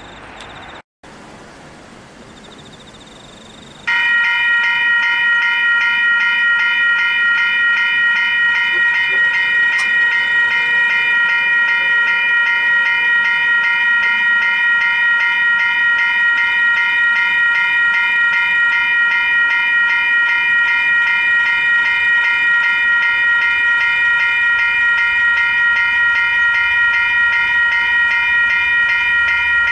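Level-crossing electronic bells (Western Cullen Hayes E-bells) start ringing about four seconds in and keep up a rapid, steady, multi-tone ringing. The crossing has been activated to warn of an approaching train.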